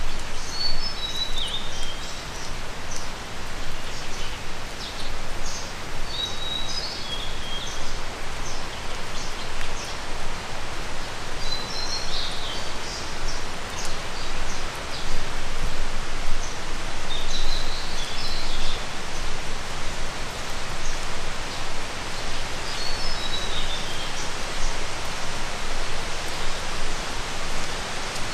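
Steady rushing of water, with a small bird singing a short falling phrase about every five or six seconds.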